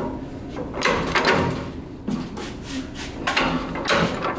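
Metal clunks and knocks from parts being handled on a hand arbor press, as an aluminium tube and sleeve are set on its plate under the ram. The knocks come irregularly, several times over the few seconds.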